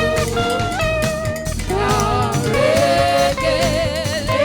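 Live gospel praise music: voices singing a melody with held, wavering notes over instrumental accompaniment.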